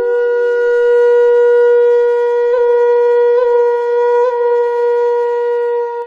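A flute holding one long steady note, ornamented with three quick grace-note flicks partway through.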